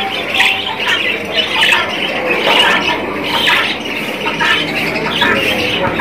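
Many caged birds chirping and squawking at once, short calls overlapping without a break.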